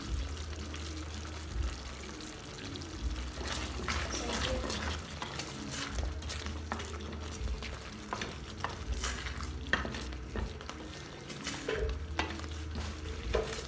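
A spoon stirring chicken gizzard stew in a cooking pot, with scattered clinks and scrapes against the pot and a faint sizzle of the still-hot stew.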